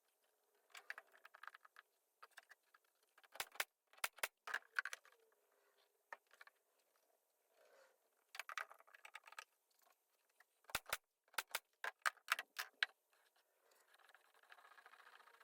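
Intermittent sharp clicks and knocks with light clatter from tools and wooden parts being handled, with quick runs of louder clicks a few seconds in and again past the middle.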